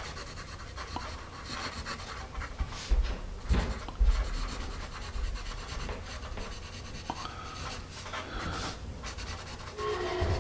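Graphite of a Paper Mate EverStrong wooden pencil scratching across paper in quick short strokes as cursive words are written, with a couple of low bumps about three and four seconds in.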